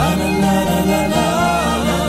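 Background music: a slow piece over held chords, with a wavering melody line coming in right at the start.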